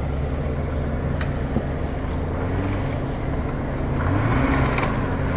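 Jeep Wrangler engine running at low revs as it crawls up a dirt rut. About four seconds in, the tyres on the dirt and the engine get louder as it climbs harder.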